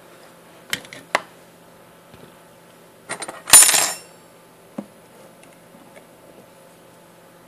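A few light clicks and knocks, then a loud ringing metallic clatter about three and a half seconds in, from metal hand tools being handled and set down on the soldering bench.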